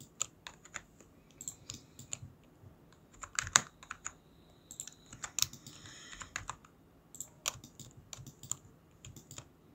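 Computer keyboard keys tapped in short, irregular clusters of clicks, as shortcuts and values are typed.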